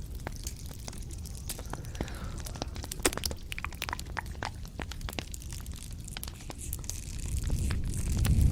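Close-miked ASMR crackling and sharp clicks in quick irregular succession, with a low rumble swelling near the end.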